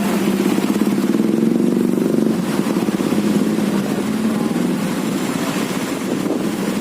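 Motorcycle engine running steadily while riding, easing off a little about two seconds in.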